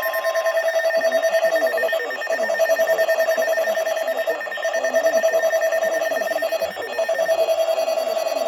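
Emergency alert attention tone: a steady alarm tone pulsing rapidly, with a short dip about every two seconds.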